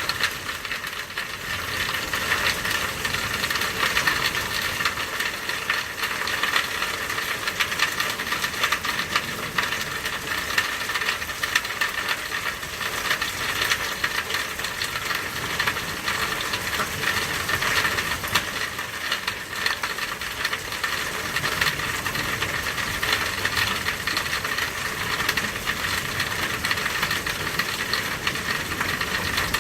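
Steady rain falling, a dense stream of small drop impacts that hardly changes in level.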